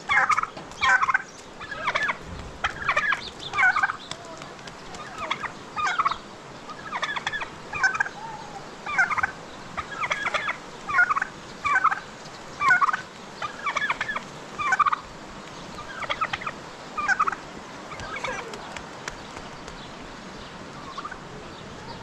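Domestic turkeys gobbling in a run of short calls, about one or two a second, thinning out and fading over the last few seconds.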